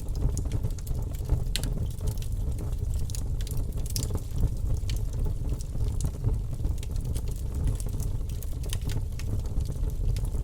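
Wood campfire burning, with frequent sharp, irregular crackles and pops over a steady low rumble.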